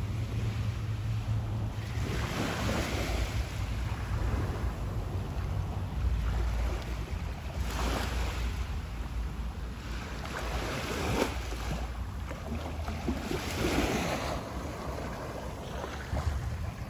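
Small waves breaking and washing up onto a sand beach, swelling and fading every few seconds, with a steady low rumble of wind on the microphone.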